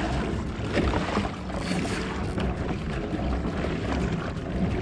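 Water washing and splashing along the hull of a kayak moving through choppy sea, with wind rumbling on the microphone.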